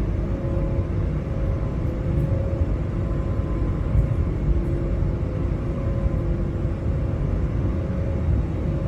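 Airbus A320neo cabin noise: a steady low rumble from the Pratt & Whitney PW1100G geared turbofans and airflow, with a faint steady hum of engine tones over it.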